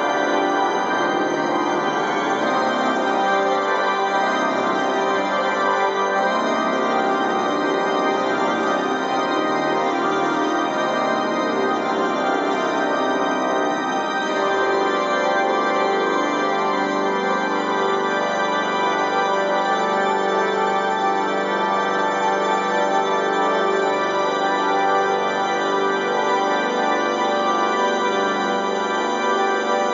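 Organ music playing steadily, with dense sustained chords that shift to a new texture about halfway through.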